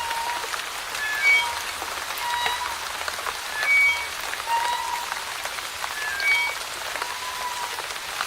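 Rusty old playground swing creaking as it swings: short, high, pitched squeaks at every swing, about one a second, over steady light rain with drops pattering.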